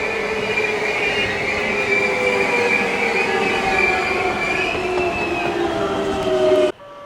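JR West 225 series electric train braking as it pulls into the platform: loud brake and wheel squeal in several high steady tones that slowly fall in pitch. It cuts off suddenly near the end.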